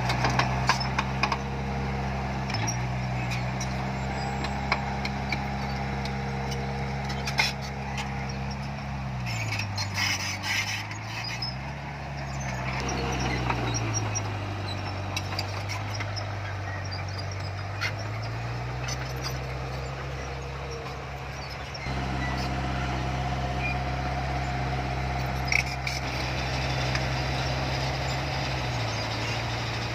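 Heavy diesel earthmoving machinery running. The engine speed drops about a third of the way through, stays low for several seconds, then picks up again, with scattered metallic clanks and knocks over the engine noise.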